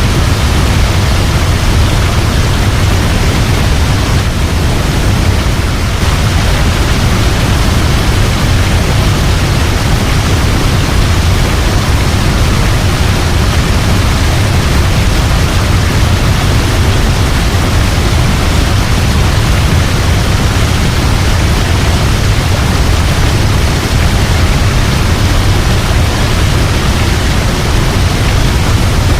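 Waterfall, a steady, unbroken rush of falling water, heaviest in the low end.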